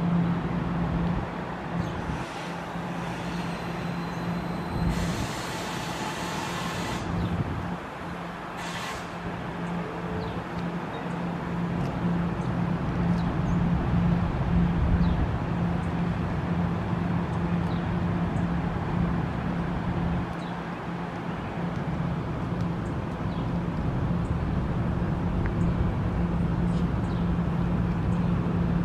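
NJ Transit Multilevel passenger train easing to a stop at a railroad crossing, with air hissing a few seconds in. The standing coaches then give off a steady low hum.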